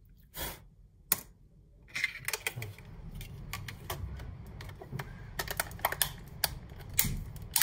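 Plastic top shell of a DJI Mavic Air drone being pressed onto its body by hand: two sharp clicks, then from about two seconds in a run of irregular clicks and rattles as the shell's clips snap in.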